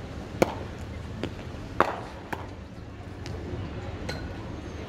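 Sharp knocks of cricket balls meeting bats during net practice: a loud one about half a second in, another nearly two seconds in, and several fainter knocks after.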